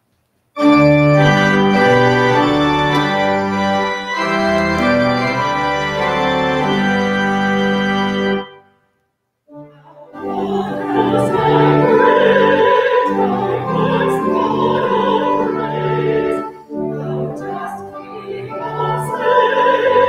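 Church organ playing an introduction of held chords, stopping about eight seconds in. After a short pause, a woman's voice starts a classical solo with vibrato, accompanied by the organ.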